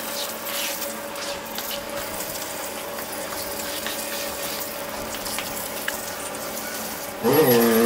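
Water hissing steadily from a garden-hose spray nozzle onto an engine, with scattered small clicks and clinks of metal. A louder pitched sound with gliding tones comes in near the end.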